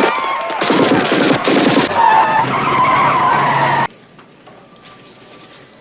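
A man imitating a car chase with his voice: squealing tyres and a racing engine. It cuts off abruptly about four seconds in, leaving only faint background sound.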